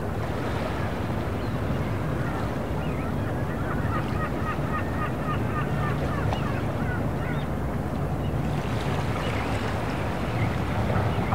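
Harbour soundscape: a steady low rumble of boat engines over lapping water, with flurries of short, quick bird calls in the middle and again near the end.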